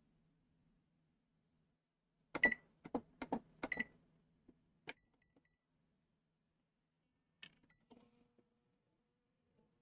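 Samsung RE-C21VB microwave oven's control-panel keys being pressed, each press giving a click with a short electronic beep. There is a quick run of presses between about two and four seconds in, then a few single presses. After the start key is pressed near the end, a faint steady hum begins as the oven starts running, its power restored by a new fuse.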